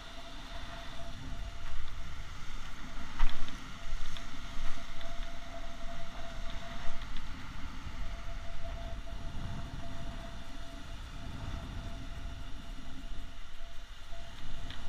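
Wind rumbling on the microphone over surf washing onto a sandy beach, swelling and easing unevenly, with one sharp click about three seconds in.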